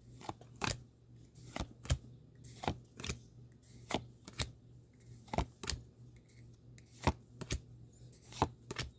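Trading cards being flipped through one by one: a series of short, sharp card snaps and flicks, about two a second and unevenly spaced, some coming in quick pairs.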